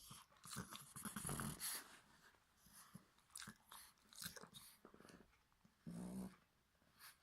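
French bulldog puppy stirring from sleep, making soft snuffling and throaty noises. They are bunched in the first two seconds, with one short low vocal sound about six seconds in.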